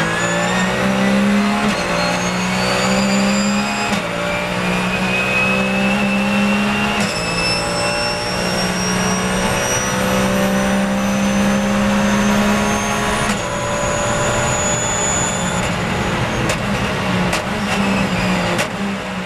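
Porsche 911 GT3 Cup's flat-six racing engine heard from inside the cockpit at full throttle, climbing in pitch through the gears with quick upshifts about four, seven and thirteen seconds in. A few sharp clicks follow near the end.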